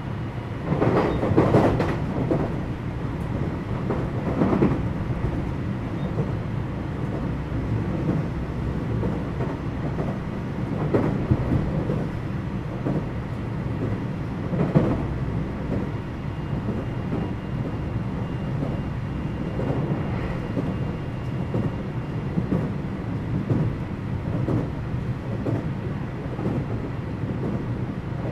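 Running noise inside a JR West 227 series electric train's motor car (KuMoHa 227) while it is under way. There is a steady low rumble of wheels on rail, with scattered louder thumps from the wheels, the strongest few in the first couple of seconds.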